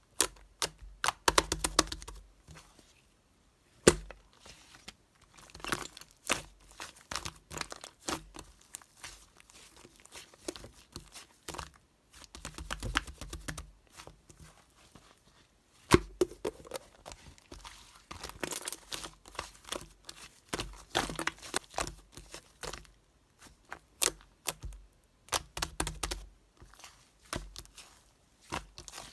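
Clay-mixed slime being pressed, stretched and coiled by hand, giving clusters of irregular crackling pops and clicks, with a few sharper pops.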